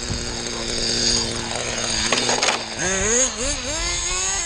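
Kyosho FW-05 nitro RC car's glow engine idling, with a short rattle of clicks about two seconds in. Near three seconds the throttle opens: the engine revs up and down, then climbs steadily in pitch as the car accelerates away. The engine is set to run a little rich.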